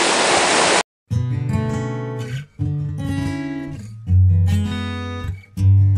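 Rushing water of a small waterfall for under a second, cut off abruptly. Then acoustic guitar background music, plucked notes over a steady bass line.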